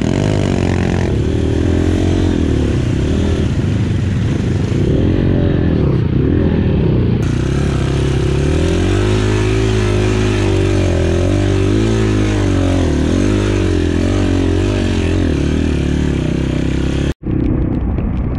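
Dirt bike engine running hard, its pitch rising and falling as the throttle is opened and closed. The sound drops out for an instant near the end.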